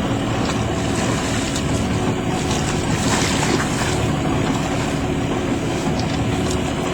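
Steady hum of a boat's engine mixed with wind and water noise.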